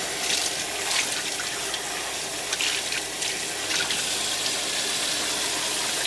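Kitchen sink faucet running steadily into a bowl held under the stream, water splashing over a skein of trout roe being rinsed.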